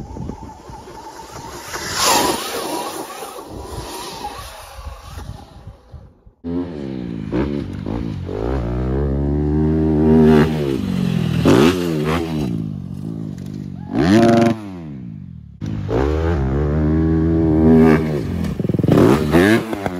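A 250 dirt bike engine revving up and down, its pitch climbing and dropping again every second or two with short sharp bursts between. It is preceded by about six seconds of rushing noise with a loud clatter about two seconds in.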